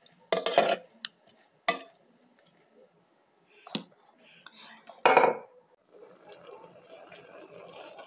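Metal spoon scraping and knocking against a metal bowl and aluminium pot as chopped onion, coriander and garlic are tipped in: several separate clatters, the loudest about five seconds in. From about six seconds, a steady faint hiss of the tomato sauce cooking in the pot.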